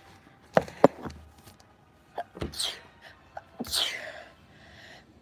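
A phone being handled and set down, with a few sharp knocks, the loudest about half a second in. Then two short breathy hissing bursts, each falling in pitch.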